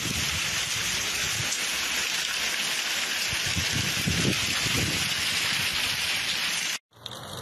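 Heavy rain falling steadily, a dense even hiss, with a few low rumbles underneath. It cuts off abruptly near the end.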